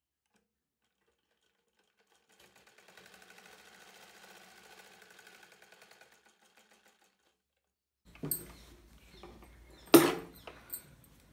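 Sewing machine running faintly for a few seconds, stitching with a fast, even rhythm. About two seconds after it stops come clicks and knocks of handling, the loudest a single sharp knock near the end.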